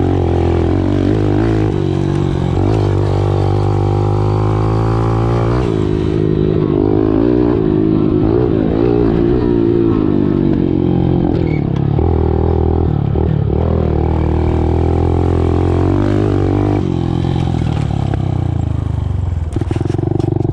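Small 110cc single-cylinder engine of an off-road machine being ridden, revving up and down with the throttle. The pitch climbs and drops repeatedly.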